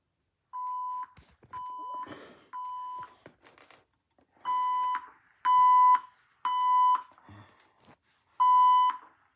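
Fire alarm evacuation tone beeping in the temporal-three pattern: three half-second beeps, a pause, then three more. The beeps are a steady mid-pitched tone, and they get louder from the second group on.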